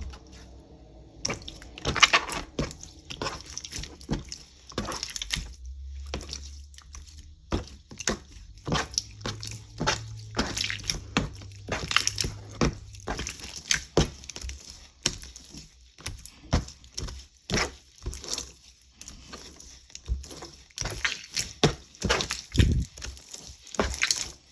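Aloe slime being squished and pressed by hand, giving many irregular wet clicks and squelching pops.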